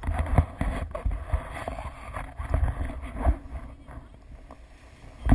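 Handling noise on a pole-mounted action camera gripped by a child seated on a plastic sled: a low rumble with irregular knocks and bumps, and one sharp thump near the end.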